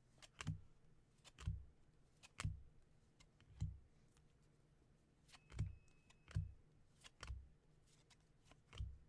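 Baseball trading cards being flipped and set down one at a time: faint soft taps, roughly one a second, with a short pause midway.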